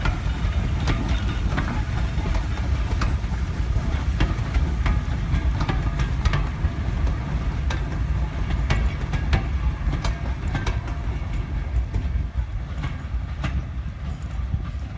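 A train running along the track: a steady low rumble of the wheels, with sharp clicks coming at uneven intervals as they cross rail joints.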